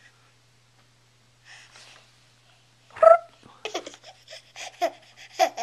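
Baby laughing: after a quiet pause with one soft breath, a loud squeal of laughter about three seconds in, then a quick string of short, breathy giggles.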